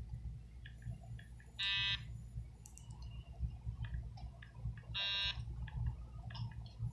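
Two short electronic buzzes, each about half a second long and about three seconds apart, with light clicks and taps between them.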